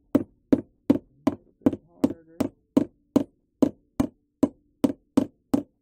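Claw hammer tapping lightly and steadily, about two and a half taps a second, driving a fitted part into a drilled hole in a plexiglass gearbox piece. The part goes in tight, in a hole that still needs reaming out a little.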